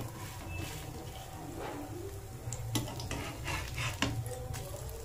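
Steel spatula scraping and tapping against a stainless steel frying pan as fritters are turned in shallow oil, with a few sharp clicks of metal on metal in the second half.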